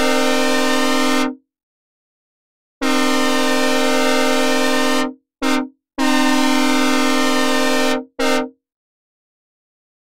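Synthesized recreation of a Nathan K1L13 plus K24 locomotive air horn, dry with no reverb, sounding a run of blasts. A long blast ends just over a second in; after a pause come a long blast, a short toot, another long blast and a final short toot.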